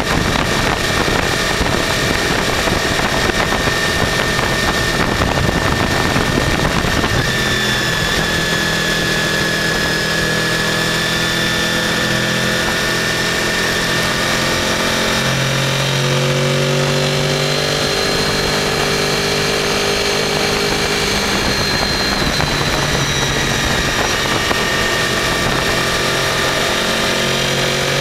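Honda VFR800 V4 motorcycle engine running while riding, heard from the bike with heavy wind rush. The wind dominates for the first several seconds, then the engine note comes through clearly, its pitch stepping up and down a few times.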